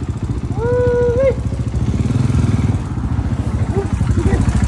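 Dirt bike engines running at idle and low speed close by, a steady rapid putter. About a second in, a short voice call is held briefly and rises at the end.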